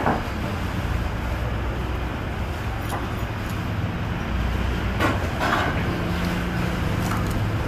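Steady rumble of street traffic, with a few light clicks and knocks. A low steady hum joins about six seconds in.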